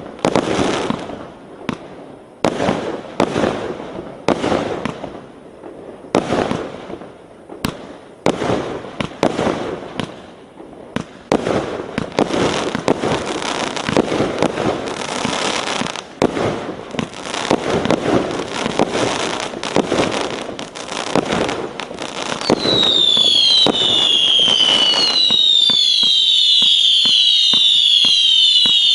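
A 1-inch, 339-shot consumer fireworks cake firing shot after shot in rapid succession, each launch followed by a noisy burst. From about three quarters of the way in, its whistling shots take over: many overlapping whistles, each falling in pitch, sounding together without pause and louder than before.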